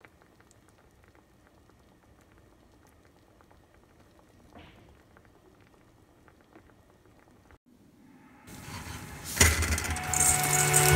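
Faint sparse crackles of a sauce simmering in a frying pan. About eight and a half seconds in, a loud sizzling hiss swells up and music tones come in with it near the end.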